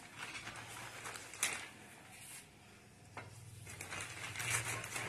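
Faint crinkling of a plastic bag being filled with soft dough, with a couple of short, light knocks.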